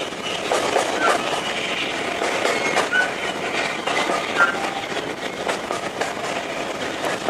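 Railway train running past, its wheels rumbling and clattering over the rail joints, with a few short, high squeaks from the wheels.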